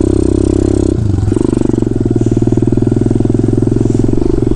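Kawasaki KLX110 pit bike's small single-cylinder four-stroke engine running steadily under way, heard close up from on board. Its note wavers briefly about a second in, then holds steady.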